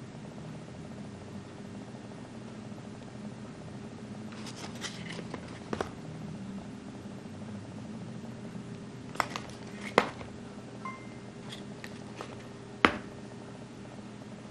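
Small cardboard box being handled and turned over on a table: short crackling and several sharp taps, the loudest about ten seconds in and again near thirteen seconds, over a steady low hum.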